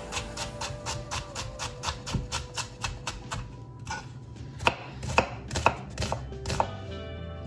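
Kitchen knife chopping an onion on a wooden cutting board: a quick, even run of knife strikes, about five a second, then after a short pause a few slower, louder chops about two a second.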